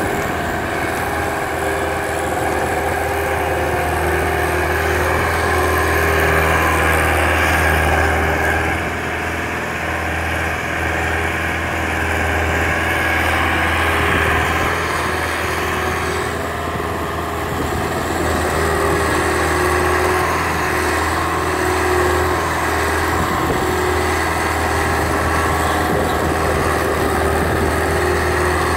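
Diesel engine of a Hintech sugarcane grab loader running steadily as it works its boom and grab loading cane, its note swelling and easing a few times.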